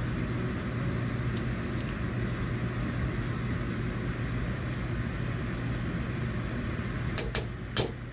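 Steady low machine hum in the kitchen, with four sharp clicks near the end as a utensil knocks against the metal cooking pot.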